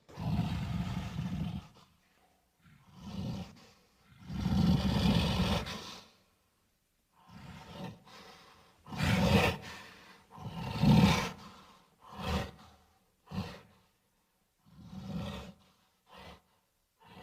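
Gorilla-like creature roars and grunts, made from King Kong and Hulk recordings: a string of about ten separate calls with pauses between them. The long, loud roars come early and in the middle, and shorter grunts come toward the end.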